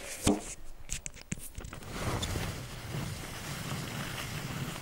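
Handling noise on a hand-held camera's microphone: a sharp knock just after the start and a few lighter clicks, then a steady low rumbling rustle from about two seconds in.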